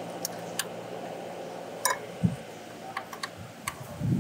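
Ratchet and socket clicking as the valve cover screws are loosened: scattered, irregular sharp clicks over a faint steady hum.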